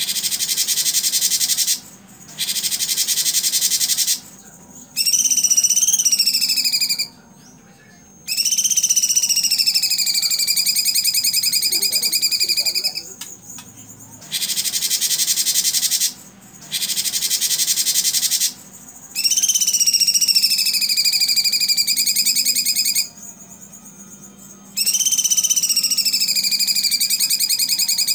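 Cucak cungkok singing its 'tembakan' song. Bursts of very rapid, buzzy trilling alternate with long slurred whistles that rise, dip and then hold steady, each phrase lasting about two seconds with short pauses between.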